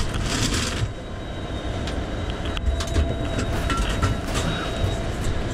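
Fire truck's engine running with a steady low rumble, while an aluminium roll-up compartment shutter is pulled open with a brief rattle about half a second in, followed by scattered clicks and knocks of equipment being handled.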